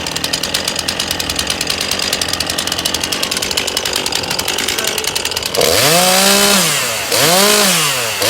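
Chainsaw idling with a fast, even engine beat, then revved hard twice about two thirds of the way in, the engine pitch rising and falling with each blip, with a third rev starting near the end.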